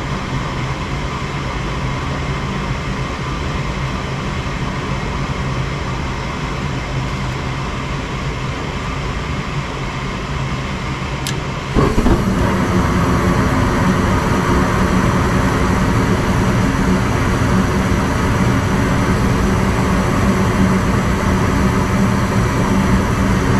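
Gas furnace inducer motor running with a steady hum. About eleven seconds in there is a sharp click, then the burners light and the sound steps up suddenly to a louder, steady rush of burning gas: the furnace firing on a call for heat.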